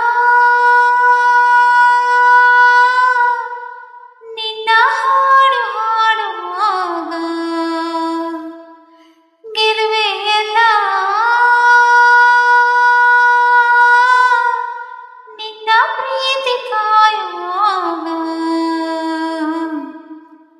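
A woman singing solo in a high voice, with no words: four long phrases, each a steady held note falling into an ornamented, wavering run, with short breaks between them.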